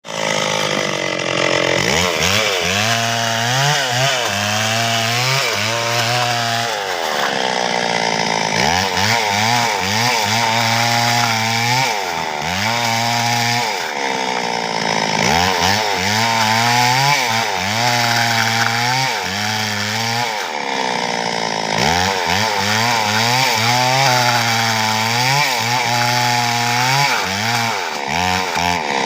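Stihl two-stroke chainsaw cutting wood, running continuously with its engine pitch repeatedly sagging and rising again as it works through the timber.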